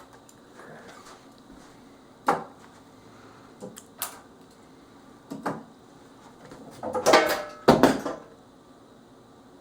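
Plastic Lego pieces clicking and knocking as the model is handled and its parts pulled off: a few separate clicks, then a louder clatter about seven seconds in.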